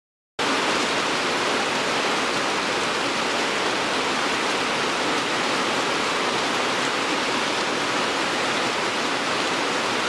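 Heavy rain pouring steadily, an even rushing hiss that starts abruptly about half a second in, after silence.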